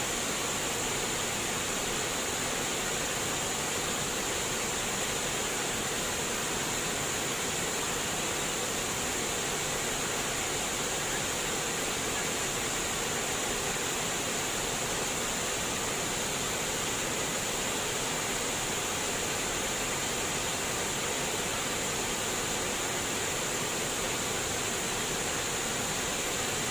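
Water flowing and trickling steadily, an even, unbroken rush with most of its sound high up.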